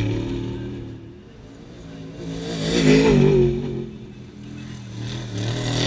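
Off-road desert race vehicles speeding past one after another, engines revving: one fading out at the start, the loudest passing about three seconds in, and another arriving near the end.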